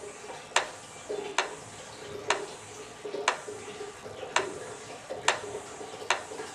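Sharp clicks at a fairly even pace of about one a second, over a faint steady hum.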